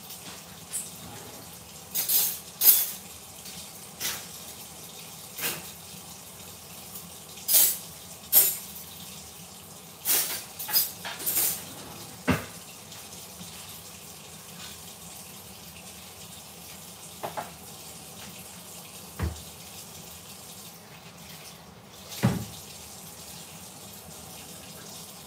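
Curry chicken simmering in a covered pot under a glass lid: a steady bubbling hiss broken by irregular sharp pops and spits, most of them in the first half.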